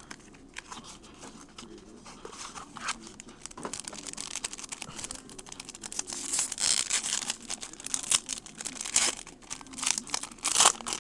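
Foil wrapper of a 2007 Upper Deck Black trading-card pack being torn open and crinkled by hand: irregular crackling and tearing, louder from about six seconds in and again near the end.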